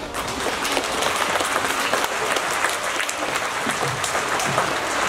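Audience applauding: many hands clapping at once in a dense, steady patter that builds up just after the start.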